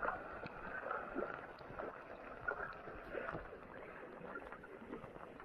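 Heavy rain falling on a flooded street, with floodwater running and splashing and many small scattered ticks of drops.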